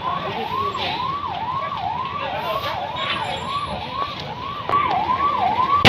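Fire engine siren in a fast yelp, its pitch rising and dropping back about twice a second.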